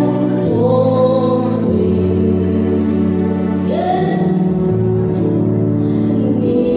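Gospel music with singing over held chords that change every second or so.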